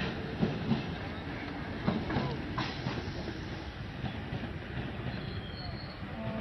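Passenger train rolling past on the rails, its wheels clattering, with a few sharp knocks in the first two seconds and a thin high wheel squeal about five seconds in.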